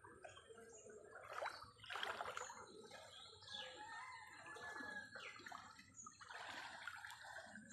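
Faint, irregular splashing and trickling of floodwater.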